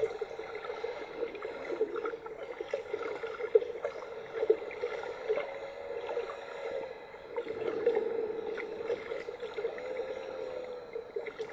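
Muffled underwater water noise heard through a compact camera's underwater housing, with many small clicks and crackles and a faint wavering tone now and then.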